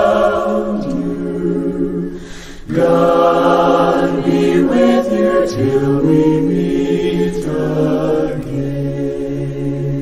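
A choir singing in long held chords, with a short drop about two seconds in before the voices swell again.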